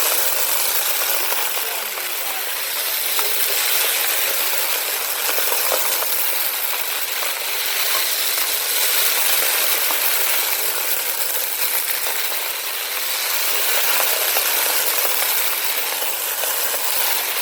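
Bissell PowerForce Compact upright vacuum running steadily and sucking up sand and grit. There is a constant rushing hiss, and many small clicks and rattles come from debris hitting the plastic inside.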